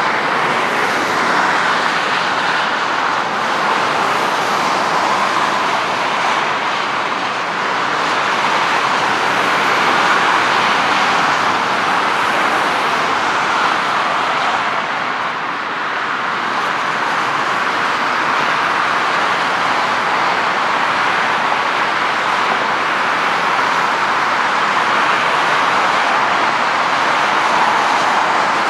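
Jet noise from a McDonnell Douglas MD-82's two rear-mounted Pratt & Whitney JT8D turbofans at high power as the airliner starts its takeoff run. A steady, even rushing sound with a brief dip in loudness about halfway.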